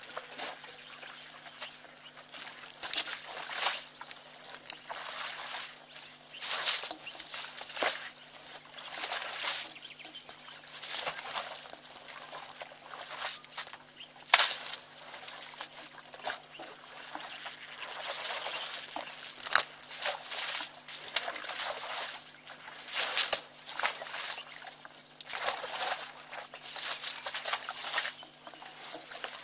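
African elephant splashing and sloshing muddy water with its trunk at a waterhole: irregular wet splashes every second or two, over a steady low hum.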